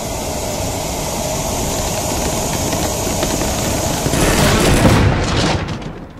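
Cartoon sound effects of a car straining and bursting: a loud, continuous rattling roar builds for about five seconds, then breaks into a flurry of sharp cracks that die away.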